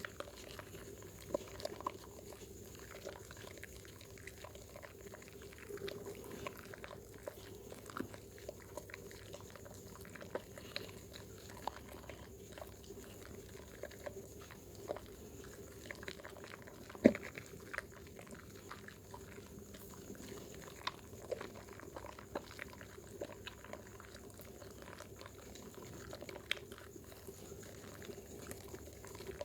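Bar of Dermythol soap being lathered in wet hands: soft, irregular wet squishing and crackling, with one sharper click about halfway through.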